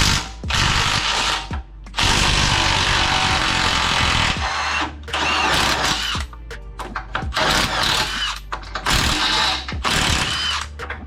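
Power tool run in about six bursts of one to two seconds each, with short pauses between, while control-arm bolts are worked off a car's front suspension.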